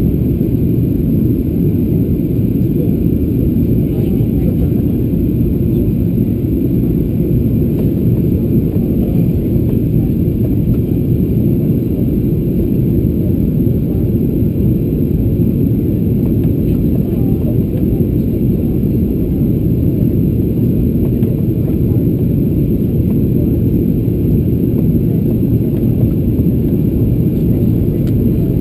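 Steady cabin noise inside a Boeing 737-800 on approach: a constant low rumble of the CFM56 turbofan engines and airflow over the fuselage, even in level throughout.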